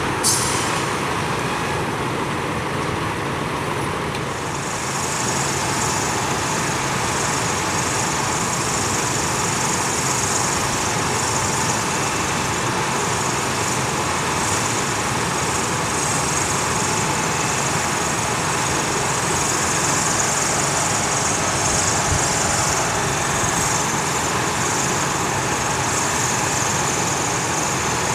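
A steady engine running without change, with a steady high-pitched buzz over it.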